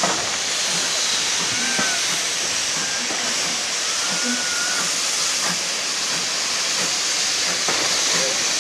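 Steam locomotive hissing steadily, a constant loud rush of escaping steam.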